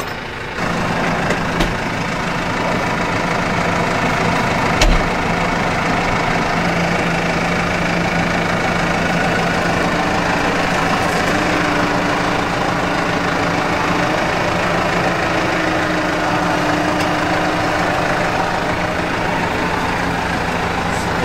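Farm tractor's diesel engine idling steadily, with a single sharp metallic click about five seconds in.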